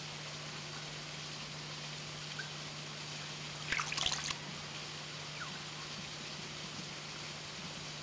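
A New Zealand scaup hopping out of the water onto a log: a short burst of splashing and dripping about halfway through, over a steady hiss and low hum.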